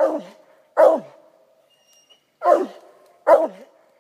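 Coonhound barking up a tree in steady single barks, each dropping in pitch at its end; four barks, with a longer pause after the second. This is the tree bark of a hound that has treed game.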